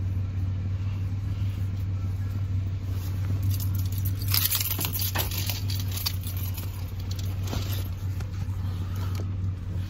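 Steady low drone of a car driving, heard inside the cabin. A little over three seconds in, clothing rustles and crackles close against the microphone for about two seconds.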